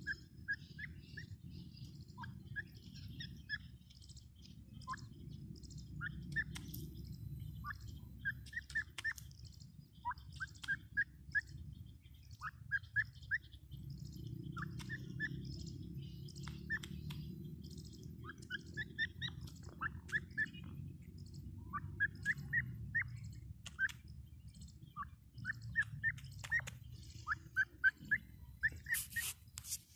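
Francolin (teetar) calling: short rising chirps in quick clusters of two to four notes, repeated every second or two, over a steady low rumble. A loud hissing noise cuts in near the end.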